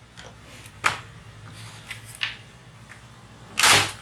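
Plastic clicks as the palm rest of a Dell Inspiron N5010 laptop is pried off its clips, with a louder scraping rustle near the end as the panel comes away.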